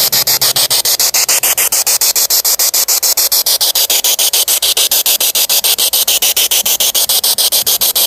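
Spirit box radio sweeping through stations: loud hissing static, chopped evenly about nine times a second.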